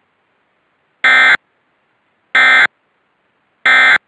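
Emergency Alert System end-of-message (EOM) signal: three short, identical bursts of SAME digital data tones about 1.3 seconds apart, marking the end of the alert.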